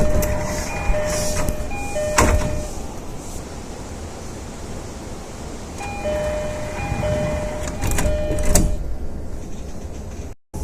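JR East E233 series train door chime: a two-note high-low chime sounding three times, heard twice with a few seconds between. Each run ends in a sharp knock, the sliding doors meeting as they shut, over the steady hum of the train.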